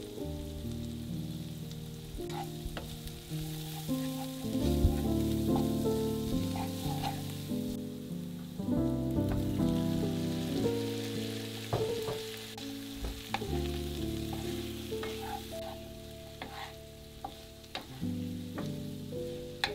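Sliced peppers and onions sizzling in a frying pan, with scattered clicks and knocks as boiled potatoes are tipped in about halfway through and a wooden spatula stirs near the end. Background music plays throughout.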